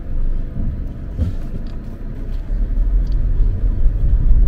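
Road and engine rumble heard from inside a moving car, growing louder about two and a half seconds in.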